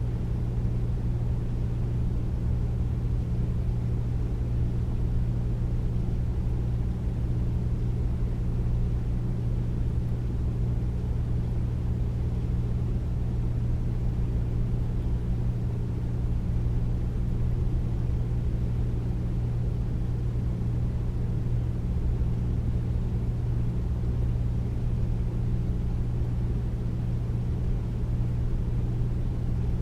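Air conditioner running steadily: a constant deep hum with a low rushing rumble, unchanging throughout.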